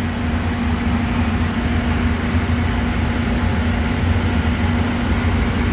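Steady machinery drone, a constant low rumble with a held hum, unchanging throughout.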